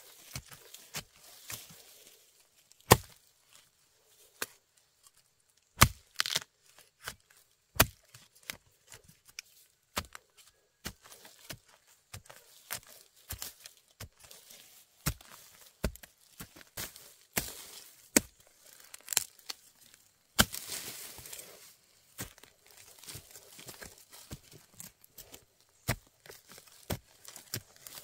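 Irregular series of sharp strikes, with two loud ones a few seconds in and a stretch of rustling about twenty seconds in.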